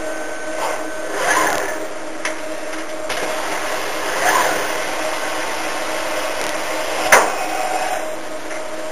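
Circuit-board singulation machine running with a steady hum. Its moving head gives two short whines that rise and fall in pitch, about a second and a half and four seconds in, and there is a single sharp clack about seven seconds in.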